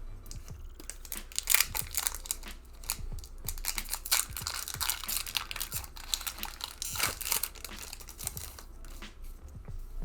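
Foil wrapper of a Pokémon card booster pack crinkling and tearing as the pack is opened, in irregular crackly bursts, the loudest about a second and a half in, around four to five seconds in and near seven seconds.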